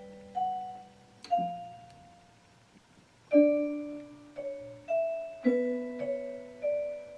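Background music: slow, sparse struck notes on a bell-like keyboard or mallet instrument, each ringing and fading, with a pause of about two seconds midway.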